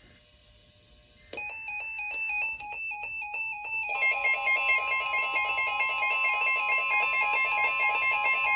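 Emergency Alert System attention tone: after about a second of near silence a shrill, steady alarm tone comes in. About four seconds in it thickens into a denser, steady alert tone that carries on, signalling the start of a new weather alert.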